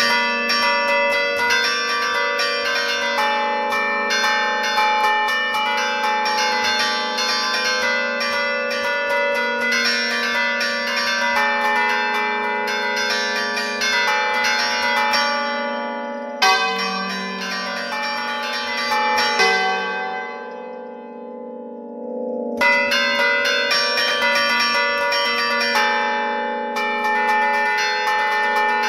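Church bells played by hand from a wooden lever keyboard (a Bergamasque suonata d'allegrezza): a fast melodic run of clapper strikes over the lasting hum of the bells, heard from close up in the belfry. A little past halfway the playing stops abruptly, goes on sparser and dies down for a couple of seconds, then picks up again in full.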